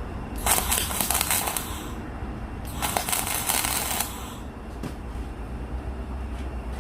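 Electric arc welding: two crackling weld bursts about a second and a half each, tacking the hydraulic cylinder's mount in place, over a steady low hum.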